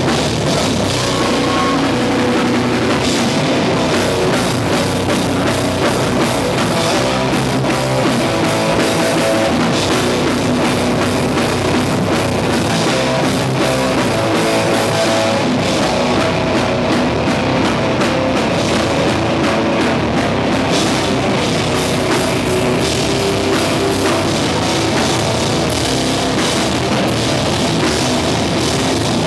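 Hardcore band playing live and loud: distorted electric guitars and bass over a pounding drum kit with crashing cymbals, without a break.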